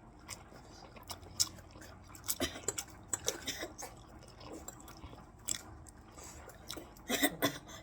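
Close mouth sounds of a person eating spaghetti and hot dogs: irregular chewing, wet smacks and small clicks.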